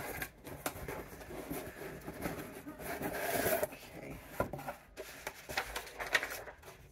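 Rustling, scraping and small knocks of packaging being handled as items are lifted out of a box, with a longer rustle about halfway through.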